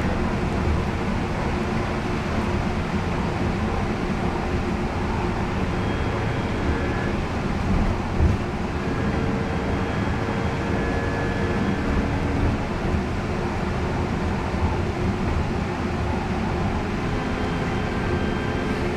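Steady running noise heard inside a moving trolleybus: tyre and road rumble with faint whining tones from the electric drive, and a brief knock about eight seconds in.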